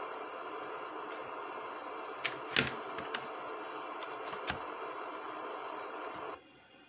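Multimeter probe tips and fingers clicking and tapping at the USB port of a Pioneer DEH-249UB car stereo: a few sharp clicks between about two and four and a half seconds in, the loudest near the middle. A steady hiss with a faint hum runs underneath and cuts off suddenly about six seconds in.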